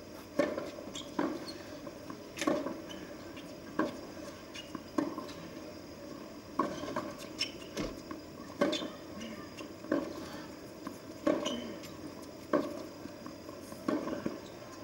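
Tennis rally on a hard court: sharp pops of racquet strings hitting the ball and the ball bouncing off the court, roughly one every second.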